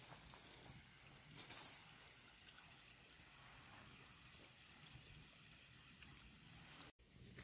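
Steady, high-pitched insect chorus trilling without a break, with a few faint clicks; it cuts out for an instant near the end.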